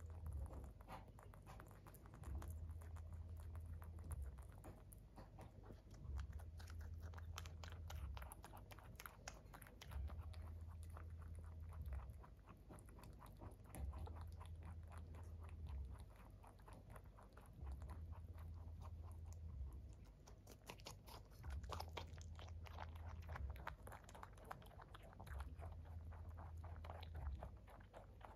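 A pet rabbit chewing pieces of fruit and carrot: a quiet, fast run of small crunching clicks. Behind it, a low hum swells on and off about every four seconds.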